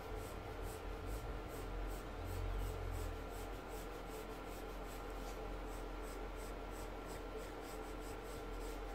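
Pencil sketching on paper: light scratching strokes, quick and repeated, going round a circle. A faint steady hum runs underneath.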